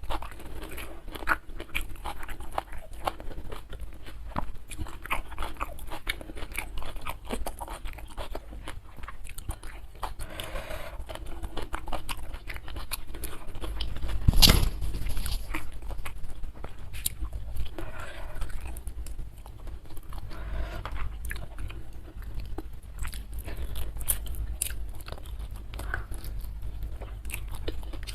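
Close-miked eating: steady chewing with many irregular crunchy bites of crisp food, with one louder crunch about halfway through.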